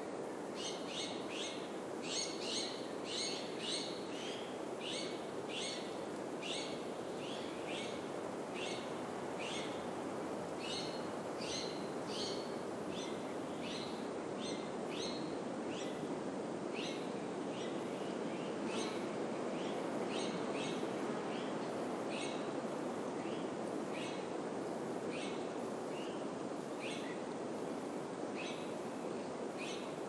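Steady rush of wind through pine trees, with a bird repeating a short, high call about once or twice a second.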